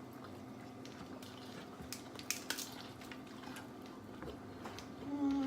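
Scattered light clicks and clinks of dishes, utensils and shells while seafood is eaten at a table, over a faint steady hum. A voice starts humming near the end.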